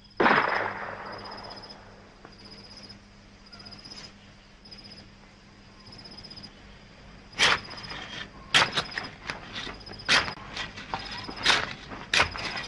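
Crickets chirp steadily, about once a second. Just after the start a single sharp blast dies away over a second or two. From about seven and a half seconds on, irregular gunshots crack in quick succession, a dozen or so.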